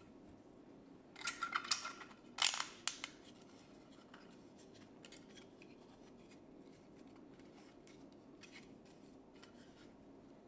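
3D-printed PLA plastic pattern parts and clips clicking and scraping as they are handled and pulled apart, in two short bursts in the first three seconds, followed by only faint light taps and rubbing.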